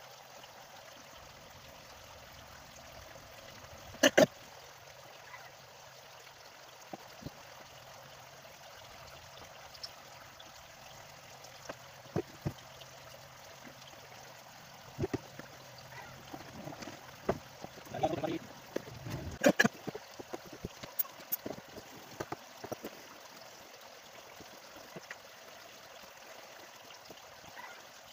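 Scattered clicks and knocks of hand tools and Samsung A12 phone parts being handled on a silicone repair mat, over a steady hiss. The loudest knocks come about four seconds in and again near twenty seconds, with a run of small clicks between them.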